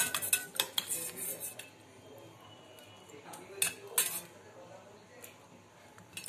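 Metal utensils clinking against a stainless steel bowl of chaat mix: a quick run of clinks at first, then two more sharp clinks a little past halfway.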